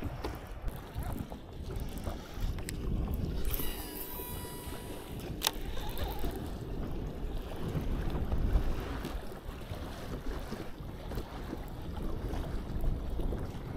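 Wind on the microphone and water lapping around a bass boat. About four seconds in, a baitcasting reel's spool whirs briefly during a cast, and a sharp click follows a moment later.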